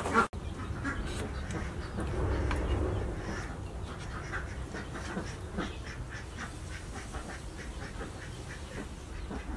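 Ducks quacking repeatedly in short, irregular calls over a steady low background hum, with a brief sharp click just after the start.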